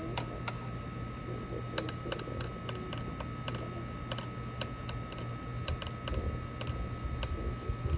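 Small spoon clicking and tapping against a plastic cup while stirring powder into water. The clicks are irregular, a few a second, thickest about two to four seconds in.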